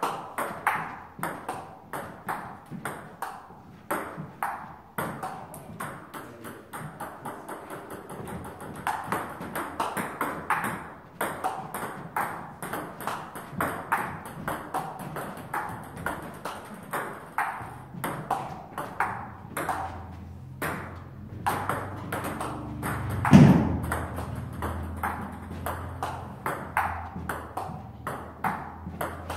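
Table tennis rally: the celluloid ball clicking sharply off rackets and the table in a steady run, about two strikes a second. A single louder thump comes about two-thirds of the way through.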